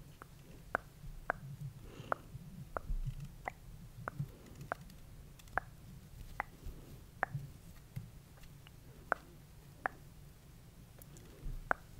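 Close-miked ASMR trigger sounds: fingers working over a fluffy microphone cover, giving a low rustling rumble with sharp little clicks about every half second to a second.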